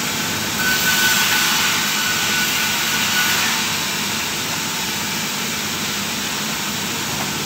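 Sawmill machinery running steadily. From about half a second to three and a half seconds in it gets louder and brighter, with a thin high whine over it.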